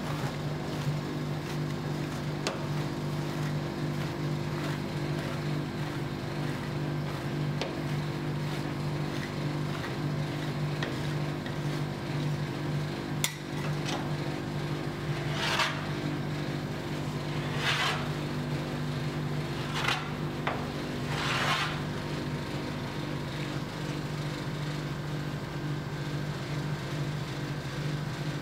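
Metal spatulas scraping and tapping on a frozen rolled-ice-cream cold plate over a steady low hum. In the middle come four short scrapes about two seconds apart as a spatula edge scores the frozen sheet into strips.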